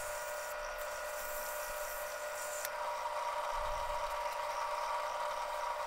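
Sears Craftsman wood lathe running with a steady electric-motor hum, while sandpaper rubs on the spinning zebrawood piece for the first two or three seconds.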